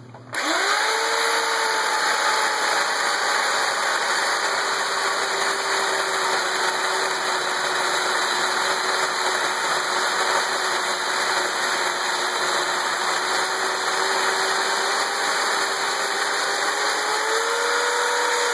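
Chainsaw rigged as a chop saw, starting up and cutting through a log. It speeds up in the first second, drops slightly in pitch and holds steady as the chain works through the wood, then rises in pitch near the end as the cut finishes.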